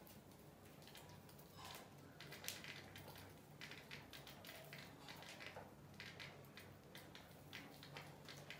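Near silence with faint, irregular ticks and scratches of rats moving about on a tiled floor and foam board, over a low steady hum.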